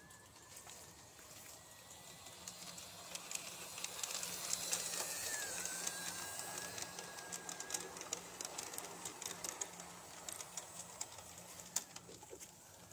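A large-scale garden model steam locomotive and tender running past on brass track, its wheels clicking over the rail joints. The sound grows louder to a peak about halfway through and then fades, with a thin motor whine under the clicks.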